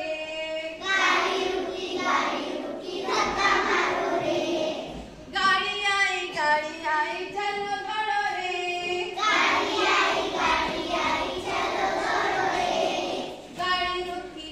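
A class of young children singing a song together in chorus, with stretches where a single clearer voice carries the line.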